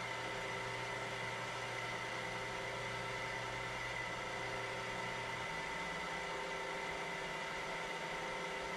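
Vertical milling machine running steadily with a fly cutter in its spindle: an even motor hum made of several fixed tones. A lower hum drops away about five seconds in.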